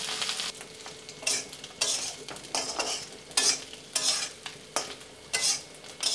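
Dried Bombay duck (bombil) pieces frying in oil in a kadhai on high heat, sizzling while a metal spatula stirs and scrapes them. After a steady sizzle for about the first half second, the sound comes in short loud bursts, roughly two a second, as the pieces are tossed. The fish is being fried until crisp.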